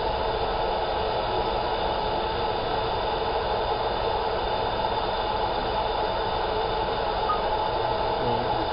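Laser marking machine running mid-engraving: a steady whirring hiss with a few faint level tones underneath, unchanging throughout.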